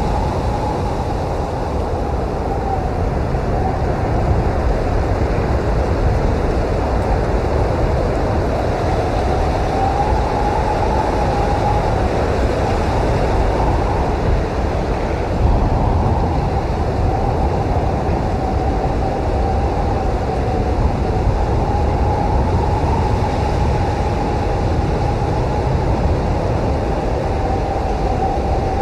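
Blizzard wind blowing steadily, with a deep rumble underneath and a thin howl that wavers up and down in pitch.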